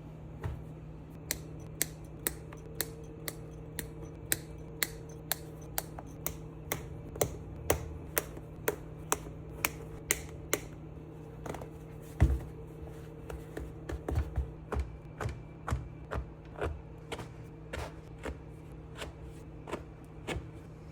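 A long series of sharp clicks or snips, about two a second for the first ten seconds, then more irregular, with one heavier knock about twelve seconds in, over a steady low hum.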